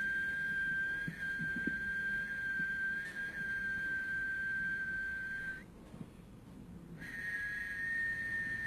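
A steady, high whistling tone held for about five and a half seconds. It breaks off for about a second and a half, then resumes at a slightly higher pitch.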